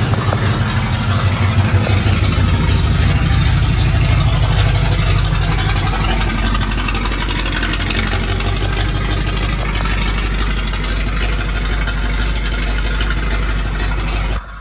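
Ford 351 Windsor V8 in a 1986 F-150 idling through straight-piped exhaust, a steady low rumble of exhaust pulses.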